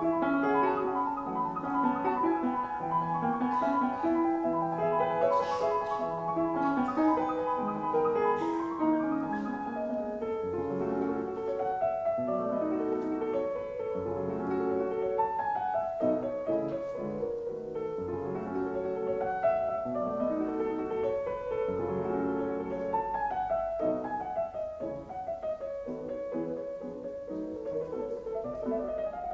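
Background music: solo piano playing a gentle, flowing melody with chords.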